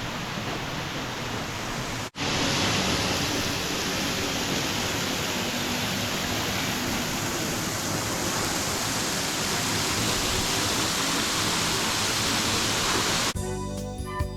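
Steady rushing roar of a waterfall, with a sudden brief break about two seconds in, after which it is a little louder. Music comes in near the end.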